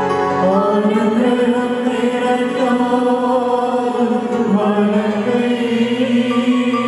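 Slow, chant-like hymn singing over sustained keyboard chords, the voice line gliding between long held notes.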